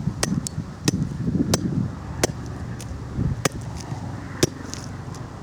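Hammer striking a punctured, dead lithium-polymer (LiPo) battery: about six sharp blows at irregular spacing, over a low rumbling noise.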